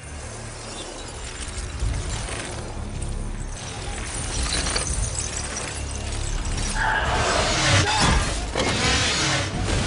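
Film battle sound effects: glass-like shards shattering and crashing over and over, with music underneath. It grows louder in the second half, with the heaviest crashes near the end.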